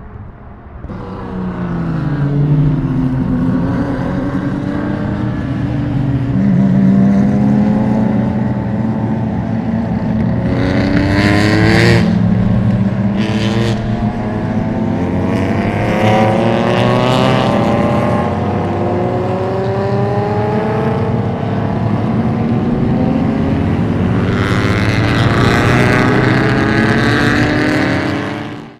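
Racing car engines at full throttle, several cars at once, each climbing in pitch and dropping back at every upshift as they accelerate past. Louder rushes come as cars pass close by.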